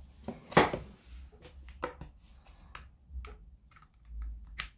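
Scattered sharp clicks and taps as a plastic GU10 LED lamp is handled and its pins are fitted into a ceramic GU10 lampholder, the loudest about half a second in.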